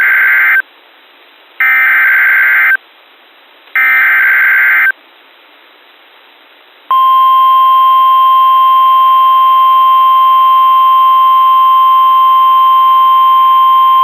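Emergency Alert System SAME header: three short bursts of warbling digital data tones, about a second apart. About seven seconds in, NOAA Weather Radio's steady warning alarm tone (1050 Hz) begins and holds. Together they announce a new warning broadcast.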